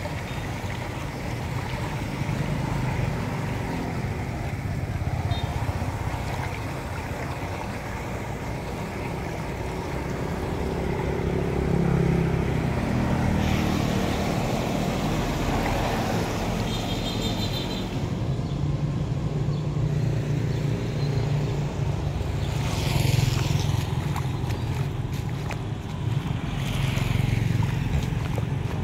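Rainwater running into a curb-side drain inlet through its metal grate, with splashing as a hand clears trash from the bars. A steady low noise of street traffic runs underneath.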